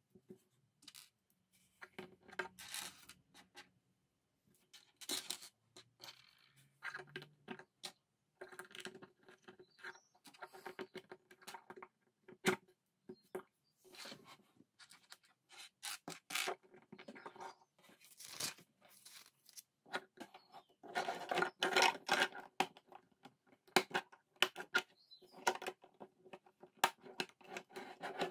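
Plastic LEGO bricks clicking and scraping on a hard tabletop as pieces are picked up, pressed together and moved about. There are irregular sharp clicks throughout, with a louder run of rattling and scraping about three-quarters of the way through.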